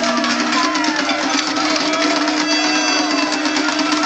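Crowd noise from people dancing and milling in a ring, with clattering and scattered shouts over a steady, loud buzzing drone. The drone steps up a little in pitch about half a second in.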